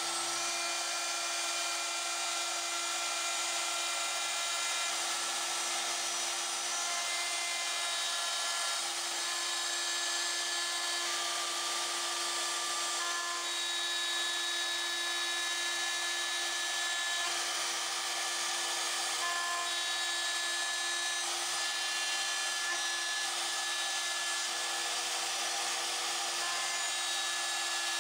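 Pilot Pro CNC router's spindle running while its cutter mills aluminum: a steady whine under a hissing cutting noise, with high ringing tones that come and go as the tool moves.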